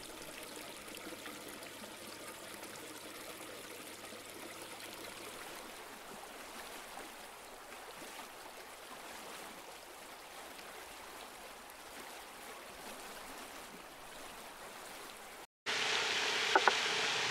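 Steady splashing rush of water from a pond's spray fountain. Near the end, after an abrupt cut, a louder rustling with a few sharp clicks.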